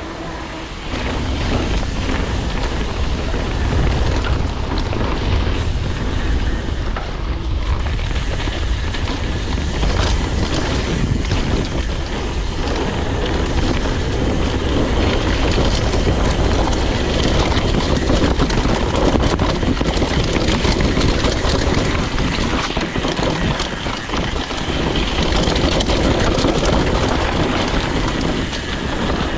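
Mountain bike riding down a wet dirt trail: wind buffeting the camera's microphone over the tyres rolling on mud and dirt, with frequent short knocks and rattles from the bike over bumps.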